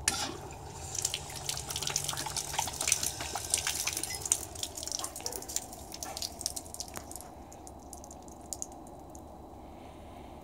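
Water running from an outdoor hose bib and splashing and dripping onto the concrete, with a dog lapping at the stream. The splashing is dense and irregular, then falls away about seven seconds in.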